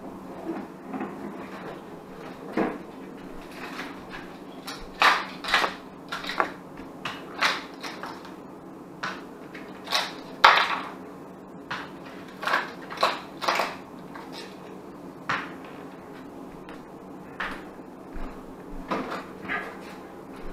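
A cat eating cooked trout from a plate on a tile floor: irregular sharp clicks and knocks of the plate and its chewing, some in quick clusters, over a low steady hum.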